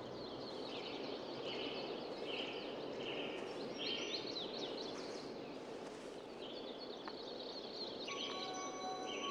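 Garden ambience: small birds chirping over a steady hiss. Near the end, ringing chime-like tones come in.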